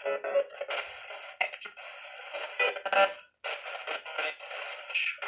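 Coultous Box ITC device playing choppy, rapidly broken-up fragments of radio sound through its small speaker, thin with almost no bass, in short bursts with brief gaps between them.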